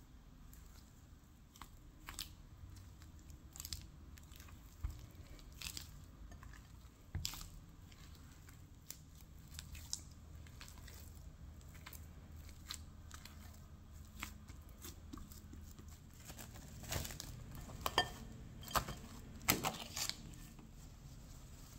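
Hands working sticky pizza dough in a ceramic bowl: soft squishes with scattered small clicks. In the last few seconds, louder sharp crackles as plastic cling film is torn and stretched over the bowl.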